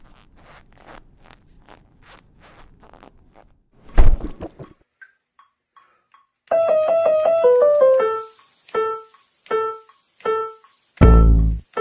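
Faint, even ticking for the first few seconds, then a loud thump about four seconds in. From about six and a half seconds a grand piano is played one note at a time, ending in loud, heavy low chords near the end.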